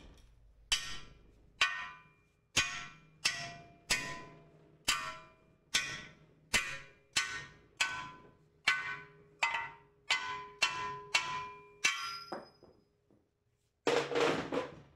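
A hand hammer striking welded steel about eighteen times, at roughly one to two blows a second, each blow ringing briefly like struck metal. The blows stop about twelve seconds in, and a short clatter follows near the end.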